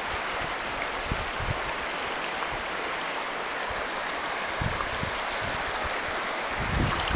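River water rushing steadily, an even hiss with no tone to it. Wind buffets the microphone near the end.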